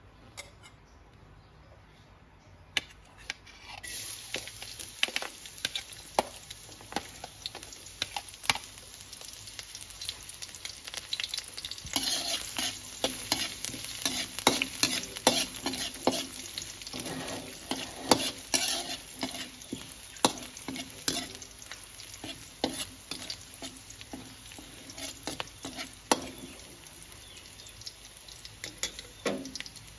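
Chopped garlic and red chilies frying in a steel wok, sizzling steadily, while a metal spatula scrapes and clicks against the wok as they are stirred until fragrant. The sizzle starts about three seconds in and is loudest around the middle.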